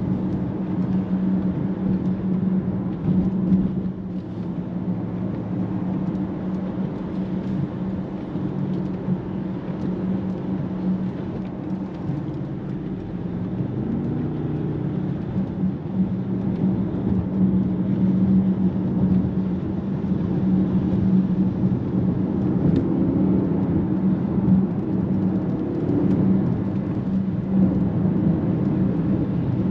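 In-cabin drone of a 2024 Mercedes-AMG GLE 63 S's twin-turbo V8 cruising at highway speed, a steady hum with tyre noise from wet pavement. The engine note shifts briefly about 14 seconds in.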